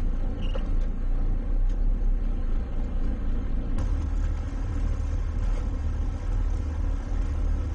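Towboat's engine running under way while towing, a steady low rumble heard from on board that grows a little stronger about four seconds in.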